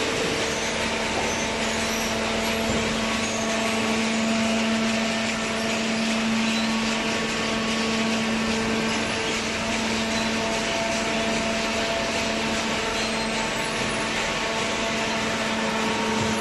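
Hydraulic paper baler running: a steady mechanical hum from its electric motor and hydraulic pump, with an even whir behind it.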